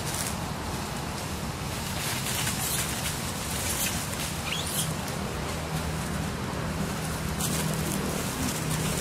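Dry fallen leaves rustling and pattering in short spells, with one short high chirp about halfway through and a low steady hum in the second half.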